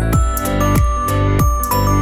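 Electronic background music with a steady kick-drum beat, about two beats a second, under sustained high notes.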